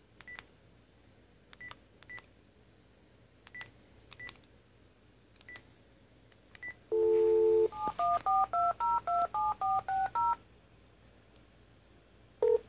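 Panasonic cordless phone handset: faint key-press beeps as a number is keyed in, then a brief dial tone about seven seconds in as the speakerphone opens, followed by a quick string of about a dozen touch-tone (DTMF) beeps as the handset dials the number. One more short beep sounds near the end.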